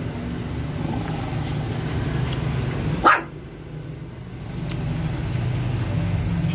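A shih tzu puppy gives one short, sharp bark about three seconds in, over a steady low rumble.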